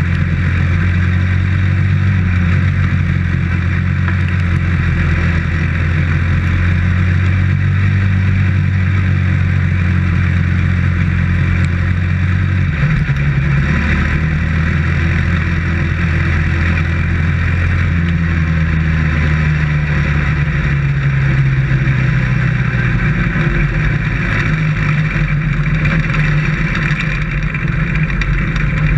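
Dirt-track race car's engine running hard at speed, heard from inside the cockpit, with a rushing noise over it. The engine note drops about halfway through, then rises and falls a few times as the throttle comes off and back on.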